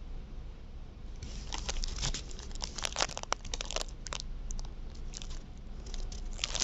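A run of irregular light clicks and crinkling, starting about a second in: things being handled at close range.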